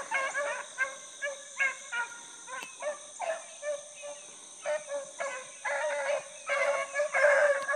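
A small pack of beagles baying as they run a rabbit's scent trail. Short separate calls come at first, then from about two-thirds of the way in several voices overlap into a steadier, louder chorus.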